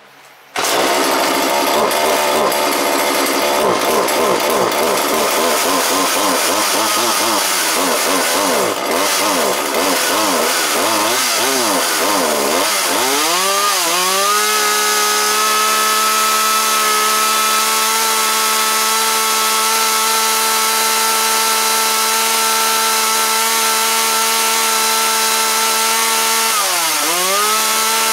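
Husqvarna 137/141 two-stroke chainsaw catching about half a second in and running at an unsteady, wavering engine speed. Around the halfway point it revs up to a steady high-pitched wide-open run, with one brief dip near the end before climbing back.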